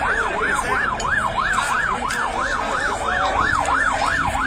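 Emergency-vehicle siren in a fast yelp, its pitch sweeping up and down about four times a second.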